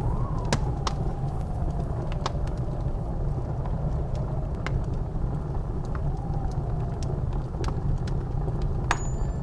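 Wood fire crackling with scattered sharp pops over the low, steady rumble of blizzard wind. A faint wind whistle rises and falls near the start and again about six seconds in.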